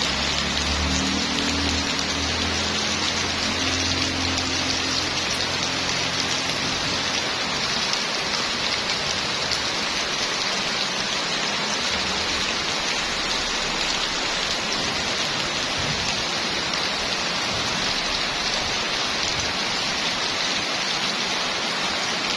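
Heavy rain falling steadily, a dense, even hiss, with a low hum underneath during the first few seconds.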